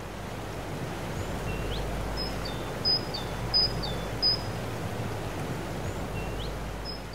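Outdoor ambience: a steady rushing noise with small birds calling over it, a run of four sharp high chirps a couple of seconds in and a few quick rising whistles before and after.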